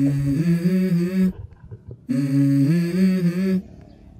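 A man humming a short melody that steps up in pitch, the same phrase twice with a pause between.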